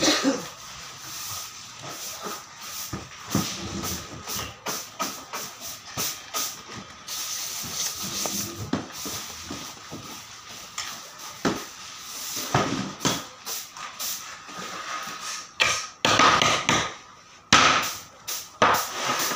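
Irregular knocks and clatter of wooden boards being handled and set down on a workshop saw table, with a steady high machine tone underneath. The loudest, scraping bursts come near the end, as boards are pushed and lifted.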